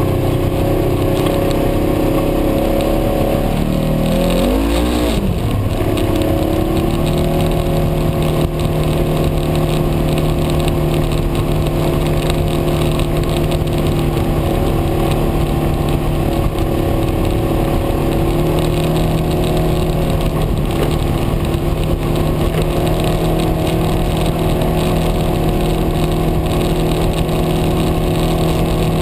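Side-by-side UTV engine running under way, heard from inside the open cab. Its note drops and then climbs again about four to five seconds in, then holds steady.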